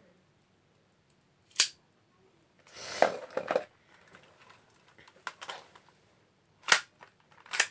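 Handling noises: a few sharp clicks spaced seconds apart, with a short burst of rustling and scraping about three seconds in.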